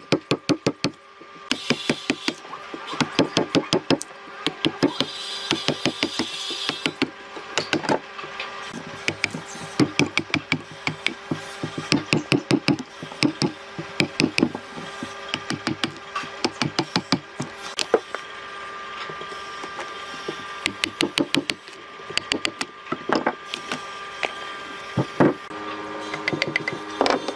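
Wood being struck in quick runs of sharp knocks, several a second, with short pauses between runs, over a steady hum.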